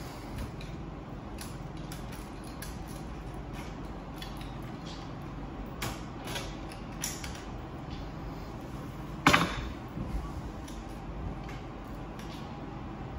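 Plastic and metal parts of a Ricoh MP C306 copier clicking and knocking as they are handled and unclipped during toner hopper removal. There are scattered small clicks and one much louder knock about nine seconds in, over a steady low hum.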